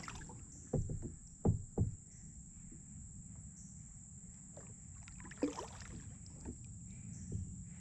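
Kayaks on a river: three sharp knocks in quick succession about a second in, then a few fainter knocks later, over a low steady rush of wind and water.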